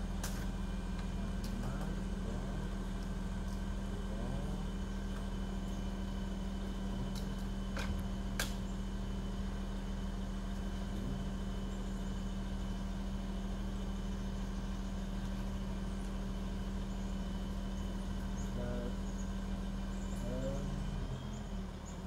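Engine of a large work machine running steadily at a constant low drone, with a couple of sharp clicks about eight seconds in.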